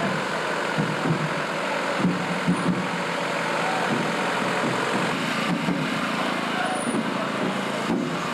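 Steady outdoor street noise with scattered voices in the background.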